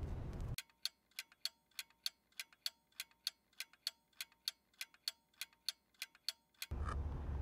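Clock-ticking sound effect, even ticks at about four a second for some six seconds, laid over silence to mark time passing. It cuts in and out abruptly, with outdoor street background before and after.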